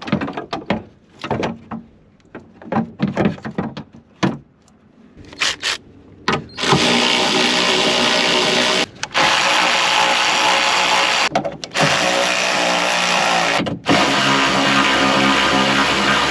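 A few knocks and clanks of metal parts being worked into place. About six and a half seconds in, a power drill starts running steadily in four long runs with short breaks between them.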